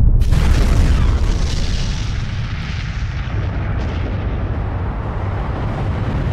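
Nuclear explosion: a sudden blast followed by a long, deep rumble that slowly eases off.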